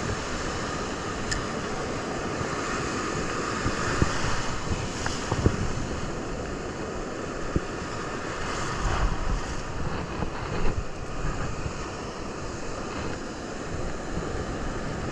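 Steady wash of ocean surf with wind buffeting the microphone, and a few small knocks.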